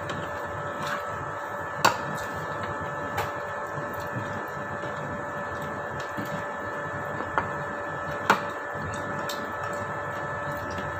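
Metal spoon and fork clinking against a ceramic plate a few times, the sharpest clinks about two and eight seconds in, over a steady machine hum.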